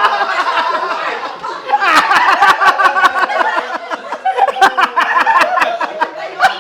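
People laughing, in quick repeated pulses that carry on throughout.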